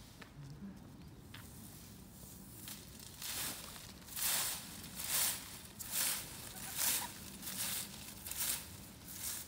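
Broom sweeping dry fallen leaves on asphalt: a steady run of swishing strokes, a little more than one a second, starting about three seconds in.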